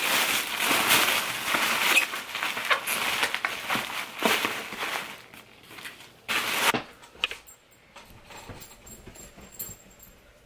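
Tissue paper and plastic packaging crinkling and rustling as a mailed package is unwrapped by hand. The crinkling dies down after about five seconds, with one more short, loud crinkle around six and a half seconds in.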